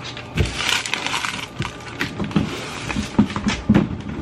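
Things being handled at a work table: a rustle of packaging near the start, then a string of irregular knocks, taps and clicks as items are moved and set down.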